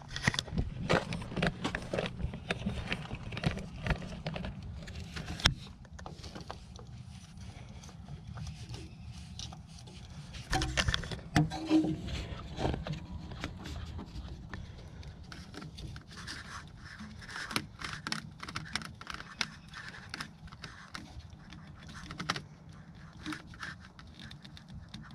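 Irregular scraping, rustling and small clicks as a plastic air filter restriction indicator is handled and screwed by hand into the air intake.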